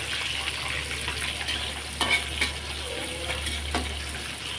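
Milkfish and tilapia frying in hot oil in a wok, a steady sizzle. A metal spatula scrapes and knocks against the wok a few times about two seconds in and once more near the end.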